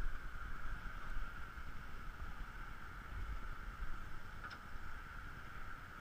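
Kubota B2710 compact tractor's three-cylinder diesel running steadily, a constant high whine over an uneven low rumble, getting a little quieter toward the end.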